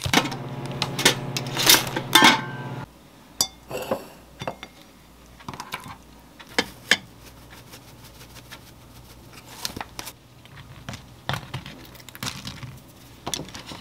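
Kitchen handling sounds: scattered clicks and clinks of a plastic food container, an enamel bowl and a metal spoon. A steady electrical hum from a kitchen appliance runs under the first three seconds and stops abruptly, and a fainter hum returns about halfway through.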